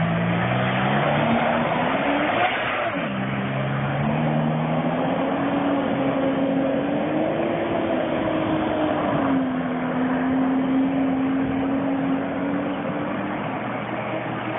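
Jet ski engine revving as it pulls away: the pitch climbs over the first couple of seconds, drops briefly about three seconds in, then rises again and settles into a steady run.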